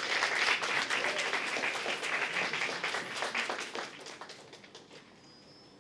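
Audience applause and hand clapping, dying away about four to five seconds in.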